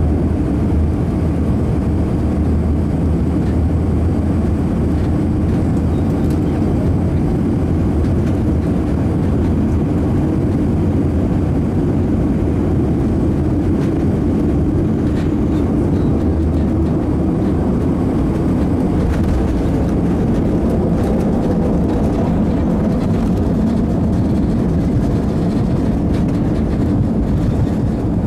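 Airbus A319 cabin noise on final approach and landing: a steady, loud rush of engines and airflow heard from inside the cabin. In the second half the plane reaches the runway, and light knocks and rumble from the wheels come through over the steady noise.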